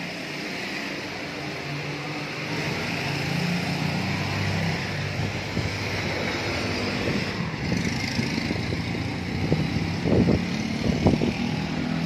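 Steady outdoor traffic noise from a road below, a constant hiss with a low engine hum from passing vehicles. A few short knocks come near the end.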